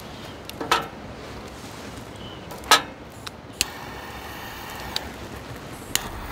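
Scattered sharp knocks and clacks, as of hard objects being handled, the loudest just under three seconds in. From about three and a half seconds a soft, even hiss joins the steady background.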